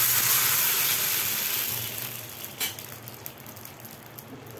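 Half a glass of water poured into a hot, oil-drained kadhai, hissing and sizzling loudly at first and dying down over about two seconds to a faint crackle as it bubbles. One light knock about two and a half seconds in.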